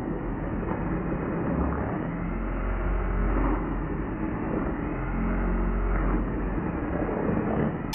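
Braun immersion blender running steadily in a plastic bowl, its blades churning flour, egg and oil into cake batter. It sounds dull and muffled.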